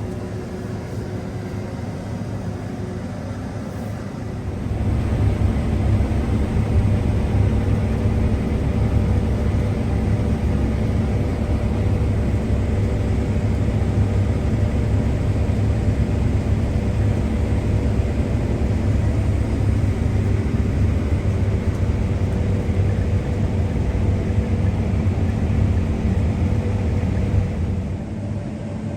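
Combine harvester running with a steady machinery drone. It grows louder about four and a half seconds in and drops back shortly before the end.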